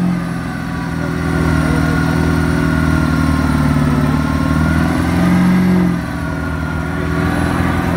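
Engine of a lifted mud truck on oversized tires running hard in a mud pit, its revs rising and falling. The pitch dips just after the start, climbs to a peak around five seconds in, then drops off suddenly at about six seconds.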